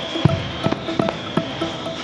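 Music with short melodic notes over a steady noisy rumble, broken by irregular sharp bangs of exploding fireworks, several in two seconds.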